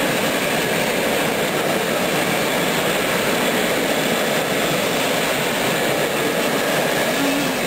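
Steady, even hiss of rain that does not change in level.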